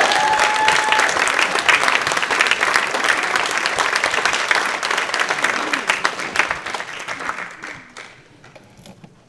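Audience applauding, the applause dying away over the last few seconds.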